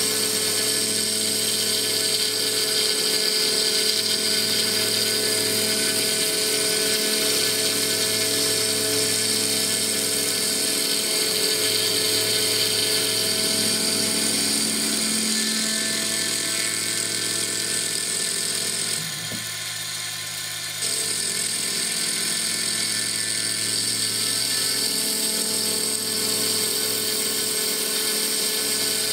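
CNC mill with a rotary fourth axis spinning a Stone Hopea burl wood ring blank against a cutting tool on a clearance pass: a steady machine whine with the hiss of wood being cut. It goes briefly quieter for about two seconds past the middle, then carries on as before.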